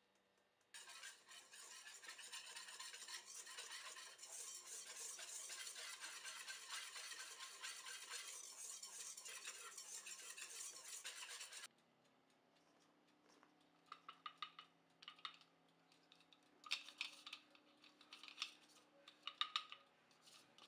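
Cocoa powder being sifted through a sieve over a stainless steel bowl: a steady hiss for about eleven seconds that stops abruptly. After it comes a run of sharp taps and clinks on the metal bowl, some ringing briefly.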